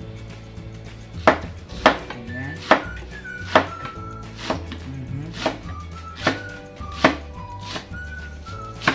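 A kitchen knife slicing cabbage on a cutting board: about nine sharp knocks, roughly one a second, as the blade cuts through and hits the board. Background music plays underneath.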